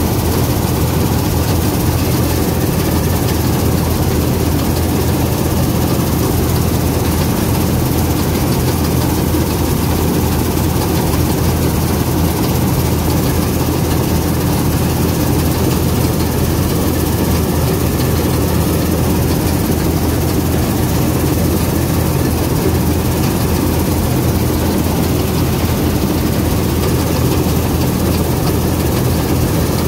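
International Harvester 321 combine harvester at work cutting wheat, heard from the operator's seat. Its engine and threshing machinery make a loud, steady drone with a deep hum underneath, unchanging throughout.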